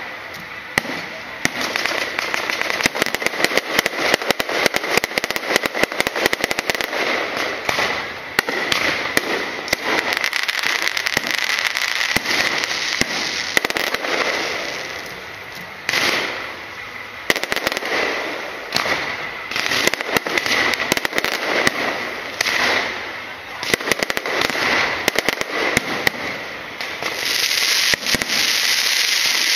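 Aerial fireworks going off overhead, with rapid, continuous crackling and popping of bursting shells and crackling stars. Near the end a denser, steadier hiss joins in as ground fountains spray.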